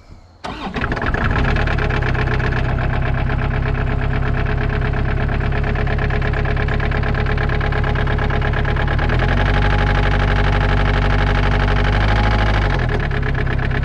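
Kubota KX121-3 excavator's diesel engine starting and running with a heavy, regular knock. The knock is a sign of serious internal damage, which the owner takes for a failed connecting rod. The engine catches about half a second in, and its note changes from about nine seconds in until just before the end.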